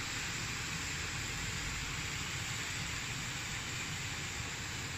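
Chopped vegetables and minced chicken sizzling steadily in a pan over a gas flame.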